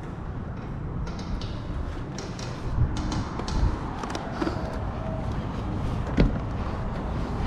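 Knocks, scuffs and rustling of a person climbing out through a window frame onto a metal stepladder, over a steady low rumble. A few separate knocks come from about three seconds in, the sharpest one about six seconds in.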